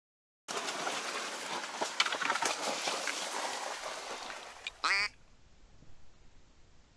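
Reeds brushing and crackling as someone pushes through them, then a single short duck quack, falling in pitch, about five seconds in. After that the sound is faint.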